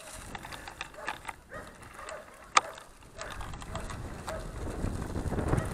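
Handcycle rolling onto a sandy dirt road: light ticking from the chain and drivetrain, one sharp click about halfway through, and a low rumble from the tyres that grows louder over the last couple of seconds. A dog barks faintly a few times in the distance.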